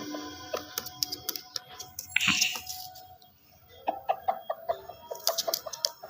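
Pet parrot making a short harsh squawk about two seconds in, amid scattered sharp clicks, with a denser run of clicks near the end.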